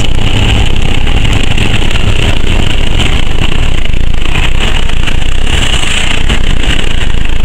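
Steady loud rumble of a car driving, engine and road noise heard from inside the cabin.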